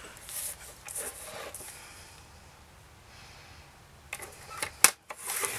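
Paper trimmer scoring fold lines in card: the blade slides along its rail with a rasping rub over the card, then after a quiet spell a few clicks near the end, one of them sharp and loud, as the clear plastic arm is handled and the card moved on the base.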